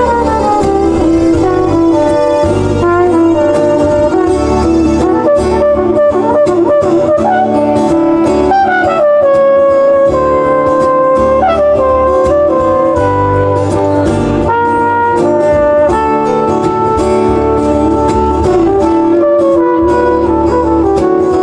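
Live jazz band playing: a copper-finished trumpet-type brass horn plays the melody over the band's accompaniment.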